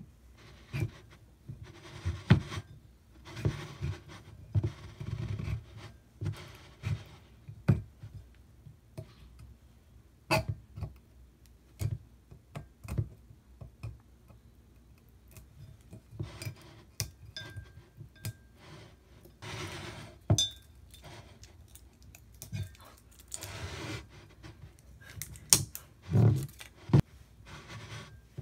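Wine bottle being opened with a waiter's-friend corkscrew. Irregular scrapes, rustles and sharp clicks are heard as the foil capsule is worked off the neck and the corkscrew's metal worm is twisted into the cork.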